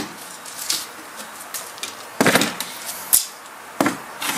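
Homemade plywood folding table being opened and set down: a loud scraping knock a little over two seconds in, then a sharp wooden knock about a second later and another near the end, as the wooden legs and top meet the paving stones.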